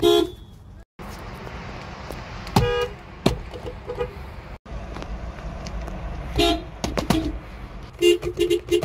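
Subaru car horns honking in short toots across several spliced clips, over traffic noise. Near the end, a quick run of about five rapid beeps.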